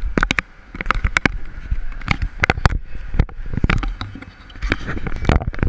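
Irregular clicks, knocks and rubbing close to a camera being handled or bumped, over a low steady hum.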